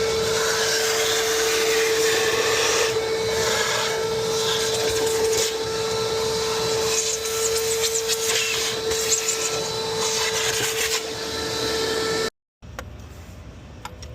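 Vacuum cleaner running with a steady whine, cleaning debris out of the open intake on a 6.7L Cummins diesel; it stops abruptly about twelve seconds in.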